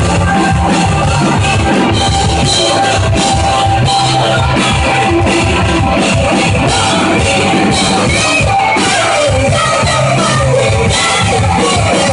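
Rock band playing loud and live: drum kit and electric guitars.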